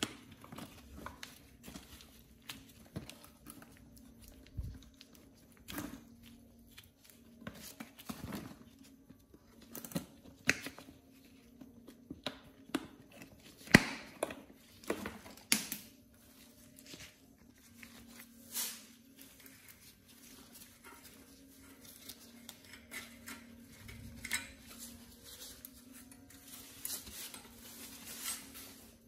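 Wiring harness and plastic connectors being worked loose and pulled out of a rusty scooter frame by gloved hands: scattered clicks, knocks and rustling, over a faint steady low hum.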